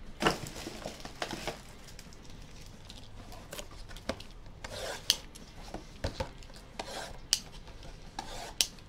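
Plastic shrink wrap being cut and peeled off a cardboard trading-card box: crinkling and rustling, with scattered sharp clicks and taps as the box is handled.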